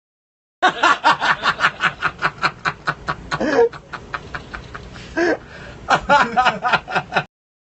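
Hearty male laughter in rapid, rhythmic pulses, easing briefly in the middle and then picking up again. The audio cuts to dead silence for the first half second and again near the end.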